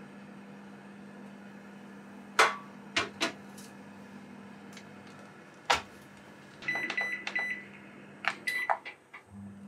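A glass baking dish is set into a Toshiba steam oven range with a few clinks against the oven tray, the oven door shuts with a thud, and then the control panel gives a run of short beeps, then a few more, as the oven is set for baking.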